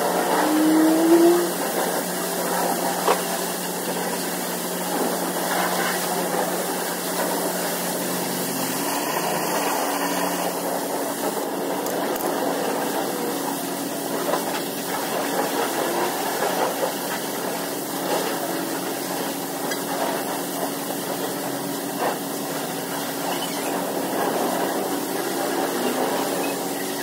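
Pressure washer running: a steady motor and pump hum under the hiss of water spray.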